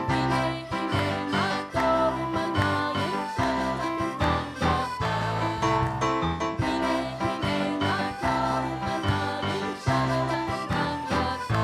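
Live worship band playing an upbeat song with a steady low pulsing beat; no words can be made out.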